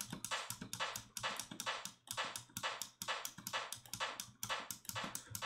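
Synthesised rimshot-like percussion hits made with FM synthesis in Ableton Operator, looping in a quick pattern of about four short, clicky hits a second, each with a very short reverb tail.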